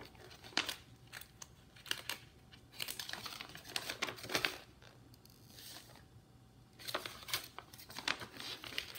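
Paper instruction sheet rustling and crinkling as it is unfolded and flipped by hand, in several irregular bursts with a quieter pause in the middle.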